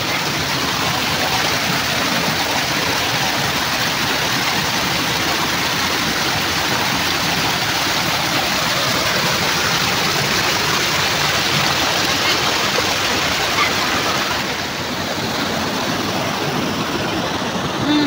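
Steady rush of river water pouring over rock ledges in a waterfall cascade.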